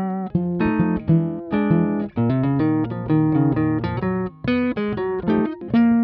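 Music: a plucked guitar tune of separate notes, melody over bass notes.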